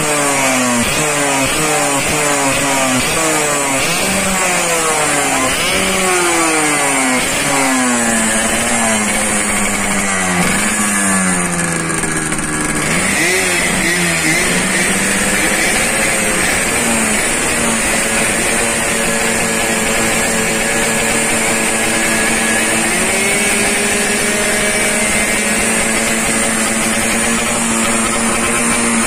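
Yamaha RX-King two-stroke single-cylinder engine through a Boban aftermarket exhaust, blipped over and over: each blip rises quickly and falls back. After about half the time it settles to a steady idle, with one small rev near the end.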